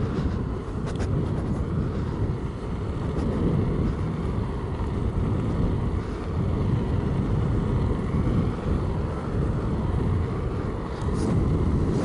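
Steady wind rush and road rumble while riding a Begode Blitz electric unicycle on the road, with no clear motor tone standing out.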